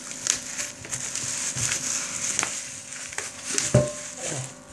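Plastic bubble wrap crinkling and crackling as it is pulled off a small metal camping-stove pot, with one sharper knock about three-quarters of the way through.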